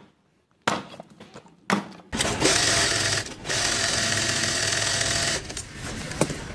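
Two axe strikes splitting firewood, then an industrial sewing machine running steadily as it stitches a suede boot upper, with one brief pause; near the end it slows to lighter, quick ticks.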